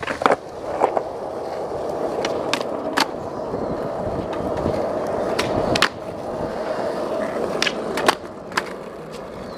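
Skateboard wheels rolling with a steady rumble, broken by several sharp clacks of the board and wheels hitting the ground. The rumble dips briefly just before six seconds in, then picks up again.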